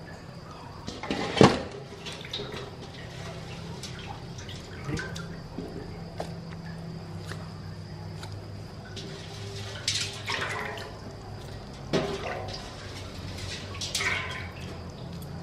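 Hands stirring wet dragonfly larvae in a plastic colander inside a steel basin: wet splashes and drips, the loudest about a second in and a few more in the second half, over a low steady hum.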